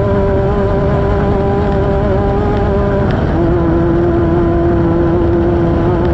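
Off-road desert race car's engine running hard at steady revs, its pitch stepping down slightly about three seconds in and then holding, over a steady low rushing noise.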